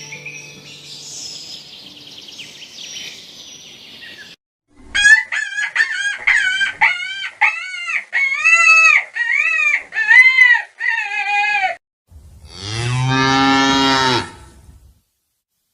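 A large fowl calling about a dozen times in quick succession, each call rising and falling in pitch. Then a cow moos once, long and low.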